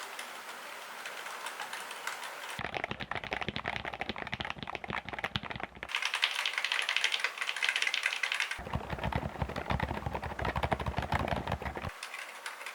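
Fast typing on a Qsenn Q87 mechanical keyboard: a dense run of key clicks and clacks. The character of the keystrokes changes abruptly about every three seconds as one switch type gives way to the next, five in all.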